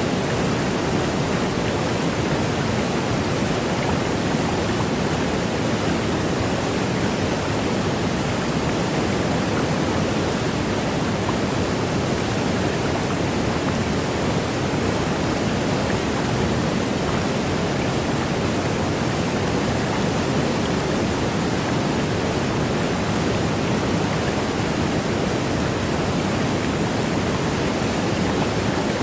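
Rhine Falls waterfall, a large river falling over rocks, making a loud, steady rush of water.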